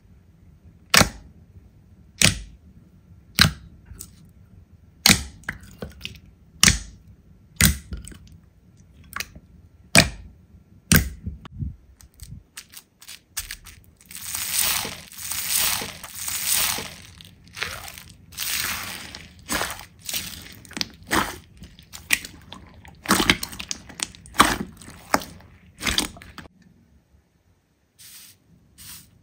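Slime being pressed and handled, making sharp pops about once a second. Partway through comes a longer stretch of dense crackling, then more pops that stop a few seconds before the end.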